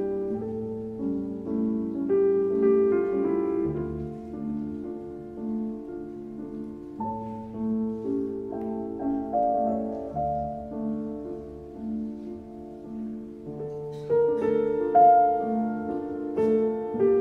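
Slow background piano music, with a low note repeating under held chords; it gets louder about fourteen seconds in.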